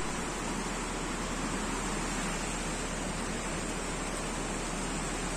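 Steady rain falling onto a swimming pool's surface, an even hiss.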